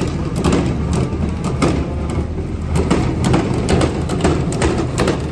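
Loader's diesel engine running steadily while chopped fodder beet tips out of its bucket onto the feed passage, with irregular clattering knocks throughout.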